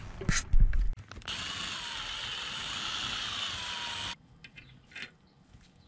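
A power drill runs for about three seconds, starting and stopping abruptly, its whine sagging slightly as it drills into sheet steel. A couple of knocks come just before it.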